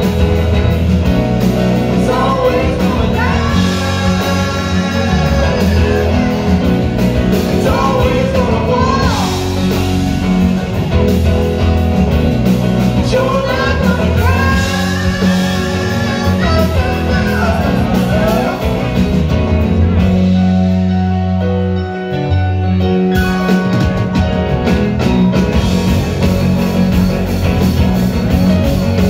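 Live rock band playing with a lead singer over keyboards, guitars and drums. About two-thirds of the way through, the band thins out to a held low note for a few seconds before the full sound comes back in.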